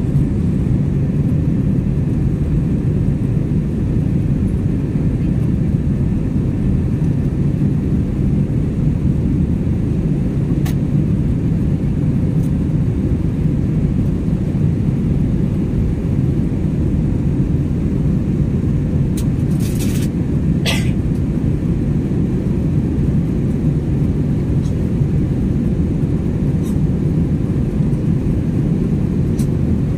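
Steady low rumble inside a jet airliner's cabin in flight: engine and airflow noise heard from a window seat, with a couple of faint brief clicks about two-thirds of the way through.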